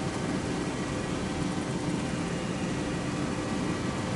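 Steady low rumble and hiss of vehicle noise, even throughout, with a few faint steady tones.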